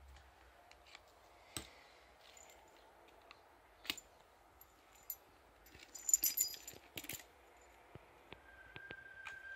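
Sharp metal clicks and knocks as lock cylinders are taken out of and clamped into a small cast-iron vise, with a brief jingle of metal keys about six seconds in, the loudest moment.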